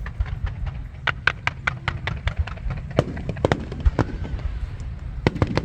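Aerial fireworks going off: dozens of sharp bangs and pops in quick, irregular succession over a steady low rumble, with a few louder reports about a second, three seconds and four seconds in.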